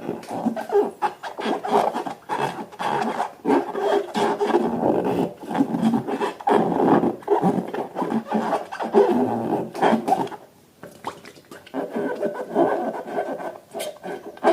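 Balloons and slime being rubbed, squeezed and handled, giving a continuous irregular rubbing and squishing with small crackles, and a short lull about ten seconds in.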